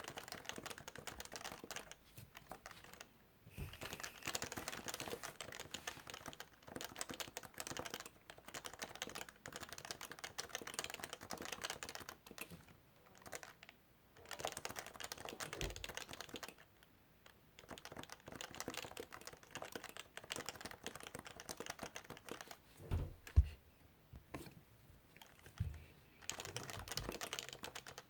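Typing on a Topre Realforce keyboard with its capacitive rubber-dome switches: fast runs of keystrokes broken by short pauses of a second or so. A few heavier low thumps fall among them, the loudest about 23 seconds in.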